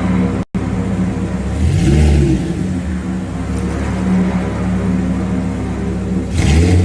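Audi R8's 5.2-litre V10 engine idling on a test stand, blipped twice: a quick rev that rises and falls about two seconds in, and another starting near the end. The sound cuts out for an instant about half a second in.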